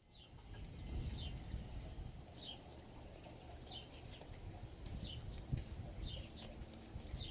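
A bird chirping repeatedly, each call a short, high, falling note about once a second, over a steady low rumble of microphone handling or wind noise.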